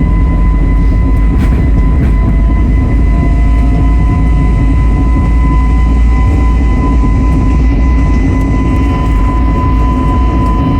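Airbus A320neo's jet engines and airflow heard from inside the cabin: a steady, loud low rumble with a steady high whine over it.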